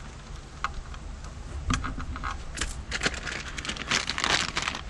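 A few separate light clicks from cutters and wiring being handled, then clear plastic packaging crinkling in the hands from about halfway in.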